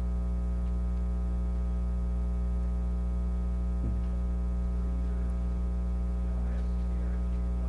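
Steady electrical mains hum with a buzzy series of overtones, with faint off-mic voices a few seconds in.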